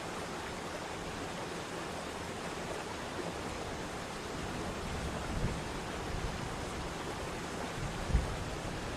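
Waterfall rushing steadily, an even hiss of falling water, with two low thumps about five and a half seconds in and near the end, the second louder.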